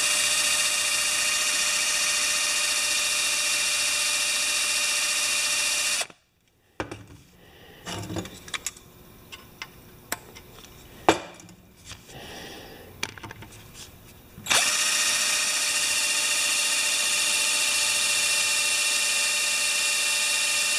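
Power drill running steadily as a steel bit bores into aluminium, with oil on the cut. It stops about six seconds in, giving way to a few quiet clicks and knocks of handling, then starts up again and runs steadily from about fourteen seconds in.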